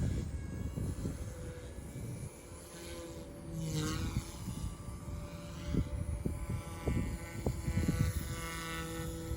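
Small electric RC helicopter (OXY 2) whining steadily from its motor and rotors, with the pitch dipping briefly about four seconds in. Strong wind rumbles and thumps on the microphone in gusts.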